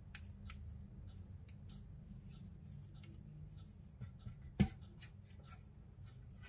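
Fresh corn husks and silk being peeled off ears of corn by hand: dry crackling and tearing, with one sharp knock a little past halfway through.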